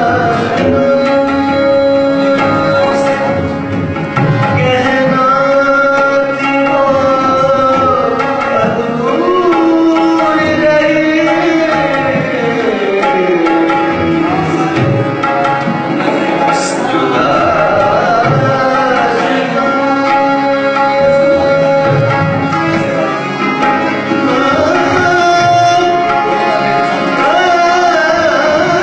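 Tabla playing under a melody of long held notes that slide between pitches.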